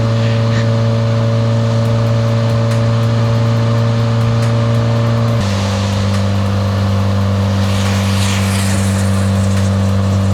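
A Subaru WRX's turbocharged flat-four engine droning steadily at highway cruise. Its pitch drops abruptly about five seconds in, with a hiss of wet road and spray swelling near the end.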